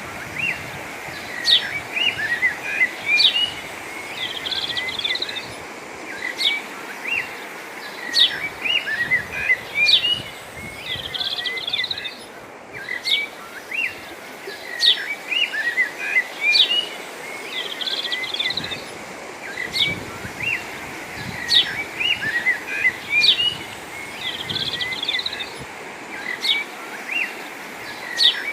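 Birds chirping and twittering: sharp high chirps every second or two among many shorter notes, over a steady background noise.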